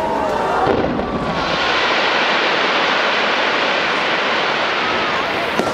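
A dense barrage of fireworks going off all at once, heard from a distance as a steady rushing noise rather than separate bangs. It swells about a second in and holds.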